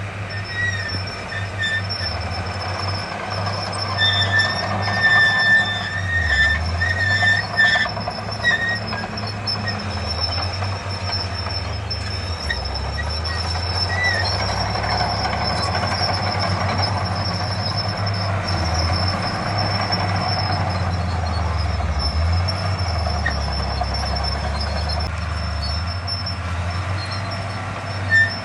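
Crawler bulldozer's diesel engine running under varying load, its low rumble rising and falling, with a steady high whine and short high-pitched metallic squeals coming in bunches about four to eight seconds in.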